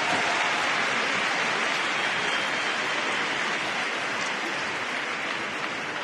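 Arena crowd applauding a figure skater's introduction: a steady, even clatter of clapping that slowly fades toward the end.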